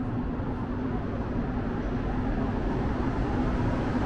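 Montreal metro Azur rubber-tyred train approaching through the tunnel into the station: a steady low rumble with a constant hum, growing gradually louder.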